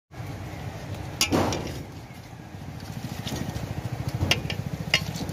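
A steady low engine rumble with an even pulse, like a motor vehicle idling, with a few sharp clicks about a second in and twice near the end.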